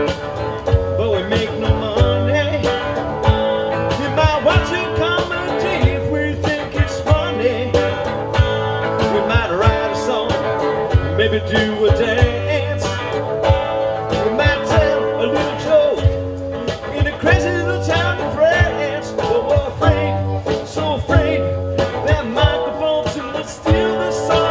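Music: guitar over a pulsing bass line and a steady beat.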